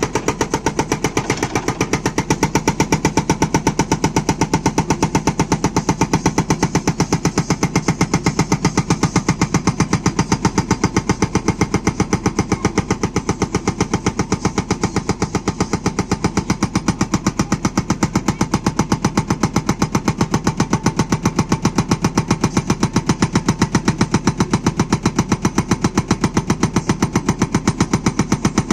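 Hydraulic rock breaker on a JCB backhoe loader hammering continuously in rapid, even blows, with the machine's diesel engine running underneath.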